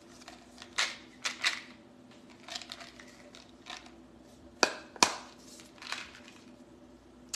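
Handling noise: scattered sharp clicks and short crinkles from small objects being handled close to the microphone, over a faint steady hum.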